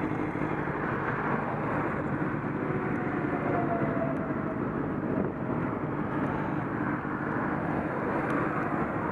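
Steady wind rush and tyre noise on a motorcycle rolling along a road while it is towed by another motorcycle, with that motorcycle's engine running close by.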